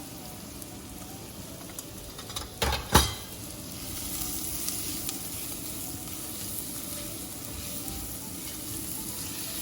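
Chopped onions frying in hot oil in a pan, a steady sizzle. About three seconds in, a couple of sharp knocks.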